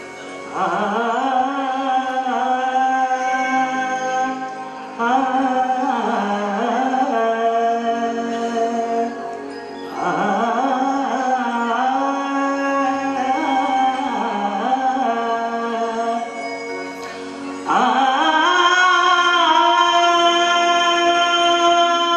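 Man singing into a microphone in slow, long-held phrases that slide and waver between notes, four phrases with short breaths between them.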